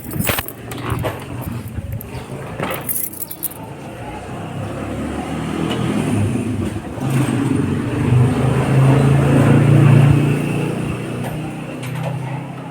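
Small Honda motorcycle engine running under the rider, growing louder as it picks up speed and then easing off near the end. Rattling clicks in the first few seconds.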